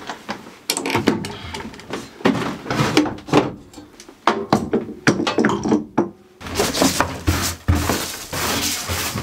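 Irregular wooden knocks and thuds of building work on a small wooden shed, coming thicker in the last few seconds.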